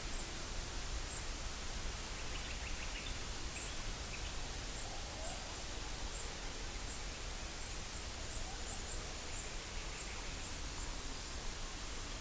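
Bush field recording: a steady hiss with faint, short, high-pitched chirps repeating irregularly, and a few faint lower calls around the middle.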